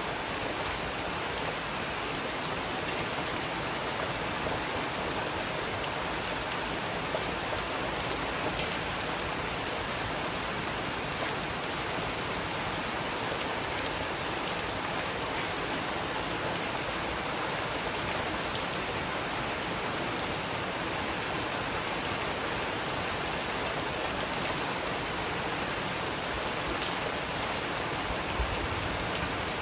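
Steady rain, with a few sharp pops and crackles from a wood fire in a fireplace.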